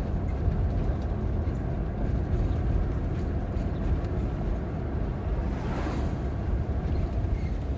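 Steady low rumble of a vehicle on the move, heard from inside the cabin: engine and road noise, with a brief swell of noise about six seconds in.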